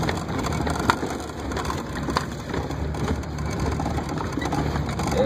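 Vehicle cabin noise while driving on a rough sandy track: a steady low engine rumble under a rattling, crunching noise, with a few sharp knocks as the vehicle bounces.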